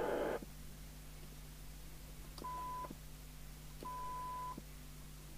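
TTI TCB565 CB radio's receiver audio on the bench. The receiver hiss cuts off shortly after the start as the squelch closes. Then a steady 1 kHz test tone from the signal generator breaks through twice for about half a second, clicking on and off, and comes on again at the very end: the squelch opening and shutting right at its threshold on the minimum setting.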